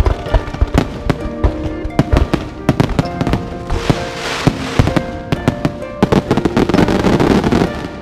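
Fireworks display: rapid bangs, many a second, with bursts of crackle about four seconds in and again near the end, then the bangs stop. Music plays underneath.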